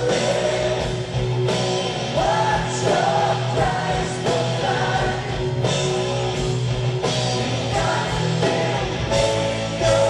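Rock music with a singer over a steady beat.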